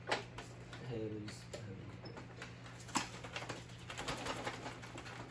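Scattered clicks and knocks from handling the Dirt Devil Dynamite Plus vacuum's hose while clearing a clog, with a brief murmur of voice about a second in.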